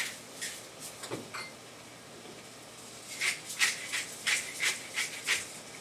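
Salt and pepper shaken from a shaker over the food: a run of about six quick rattling shakes, roughly three a second, starting about three seconds in. One or two faint knocks come before it.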